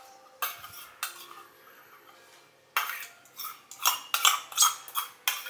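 A metal spoon scraping and knocking inside a stainless steel mixing bowl as thick yogurt dressing is scraped out onto a salad. A couple of scrapes, a short quiet pause, then a quick run of clinking knocks about three a second through the second half.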